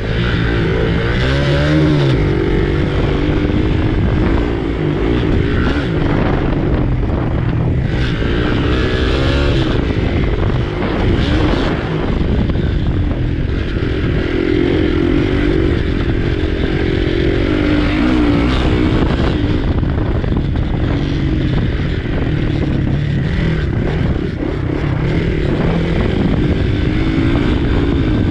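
Dirt bike engine revving hard at race pace, its pitch rising and falling again and again as the throttle is opened and closed through corners. It is heard close, from a camera mounted above the handlebars.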